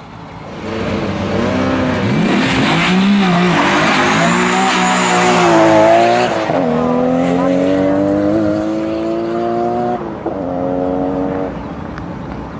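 Nissan Skyline road car launching off a sprint start line, its engine revving hard up through the gears. The pitch climbs and drops back at each gear change, and the engine fades as the car pulls away down the course.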